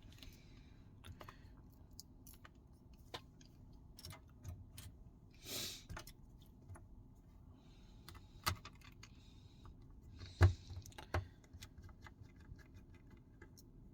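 Small scattered clicks and ticks of a precision screwdriver and loose screws being worked out of a phone's frame, with a brief scrape about halfway through and sharper taps near eight and ten and a half seconds in.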